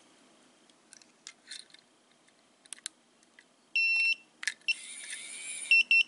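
Electronic beeps from a RVLIBRO keyless RV door lock as its remote fob is paired: one half-second beep about four seconds in, then short beeps near the end. Before the beeps there are a few faint plastic clicks, and between them a noisy sound lasting about a second.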